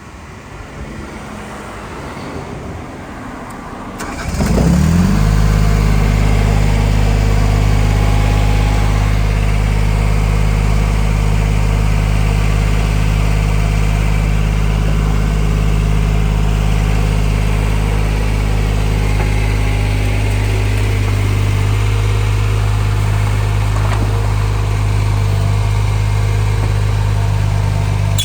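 Yanmar YB10 mini excavator's diesel engine starting about four seconds in, its speed rising as it catches, then running steadily.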